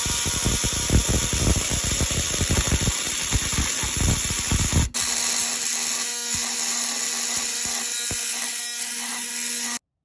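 Milwaukee oscillating multi-tool with a metal-cutting blade buzzing as it grinds through the steel collar of a Huck lockbolt. The sound changes about halfway through and cuts off suddenly just before the end.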